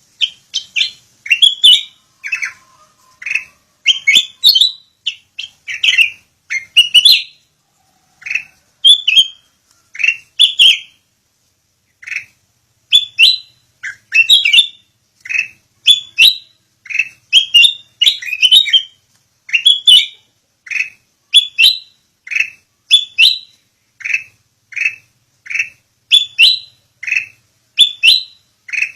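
A sooty-headed bulbul (kutilang) chirping: short high notes repeated one to two a second, with a few brief pauses.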